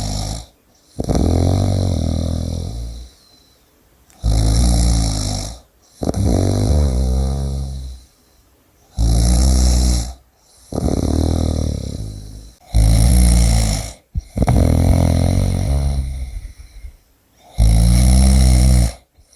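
A person snoring loudly and rhythmically, about once every four to five seconds. Each breath is a short harsh snore followed by a longer, rattling rumble that fades away.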